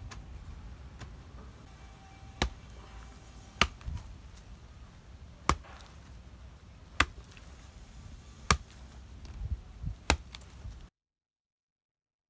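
Repeated chopping strikes, six sharp blows about one every second and a half, then the sound cuts off.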